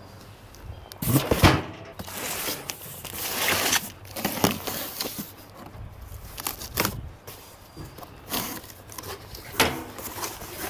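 Cardboard box and packaging being handled and opened: irregular rustling, crinkling and tearing, with a couple of sharp knocks about a second in.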